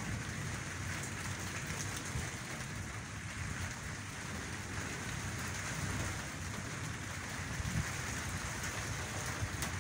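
Rain falling steadily, an even hiss.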